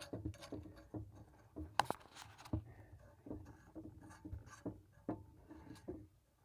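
The nut on top of a compression shut-off valve being screwed back on by hand over a new replacement stem: faint scraping of metal threads with small scattered clicks, one sharper click about two seconds in.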